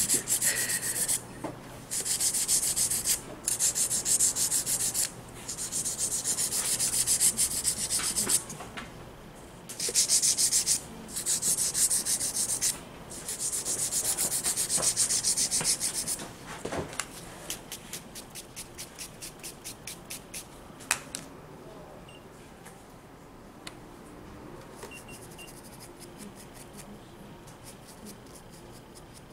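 A hand nail file scraping back and forth across fingernails in runs of quick strokes with short pauses. It stops about sixteen seconds in, leaving faint regular ticks and a single click.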